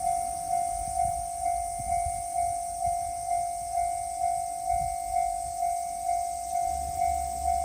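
Japanese railway level-crossing warning bell ringing in an even, steady rhythm of about two strokes a second, with low rumbling underneath.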